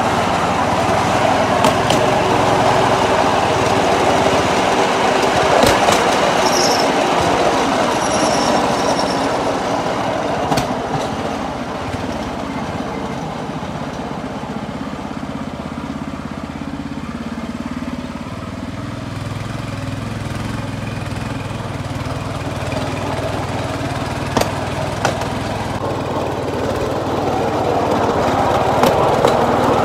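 Motorized rail skate, a small engine-driven rail trolley, running along the track: steady engine and wheel-on-rail noise with a few sharp clicks. It eases a little in the middle and grows louder again near the end.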